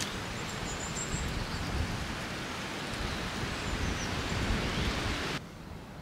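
Steady rushing outdoor background noise that starts and cuts off abruptly, stopping about five seconds in.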